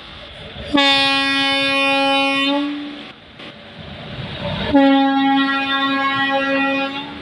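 Indian Railways electric locomotive sounding its horn: two long, steady blasts of about two seconds each on the same note, with a low rumble from the slowly passing train between them.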